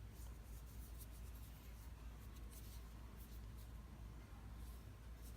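Faint, scattered rustling and scraping from hands handling the unboxed flashlight and its packaging, over a low steady hum.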